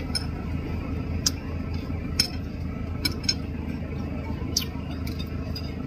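Spoon and fork clinking against ceramic dishes while eating, about seven sharp, irregular clinks, over a steady low background rumble.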